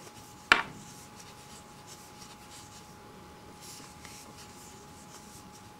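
Soft rubbing and rustling of cotton yarn being worked with a crochet hook, with one sharp click about half a second in.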